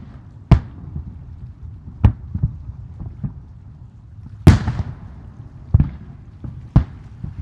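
Fireworks bursting overhead: a series of sharp booms at irregular intervals with smaller pops between them and a low rumble. The loudest boom comes about four and a half seconds in.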